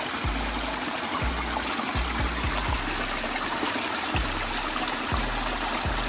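Creek water steadily trickling and splashing down a small cascade of stacked rocks, with a background music track's bass notes pulsing about once a second over it.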